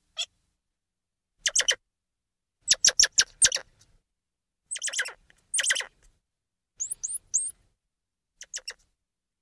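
Squirrel monkey calls: clusters of short, high-pitched chirps and squeaks with silent gaps between them. About seven seconds in come a few quick rising peeps.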